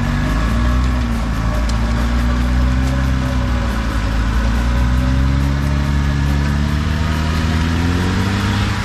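Jeep Wrangler Rubicon's engine running at low revs under load, its pitch rising and falling with the throttle as it crawls through mud.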